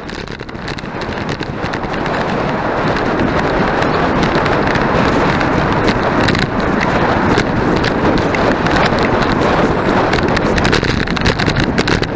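Wind rushing over a handlebar-mounted camera's microphone as a bicycle is ridden at speed, a steady loud rush with frequent small crackles that swells up over the first couple of seconds.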